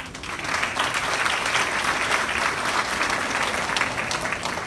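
An audience applauding: many hands clapping together. The applause swells over the first second and begins to taper off near the end.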